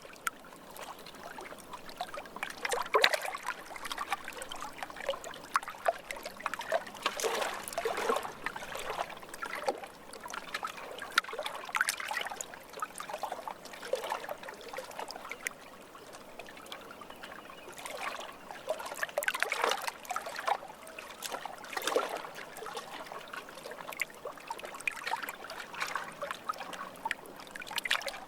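Lake water trickling and splashing gently, in small irregular bursts every second or two.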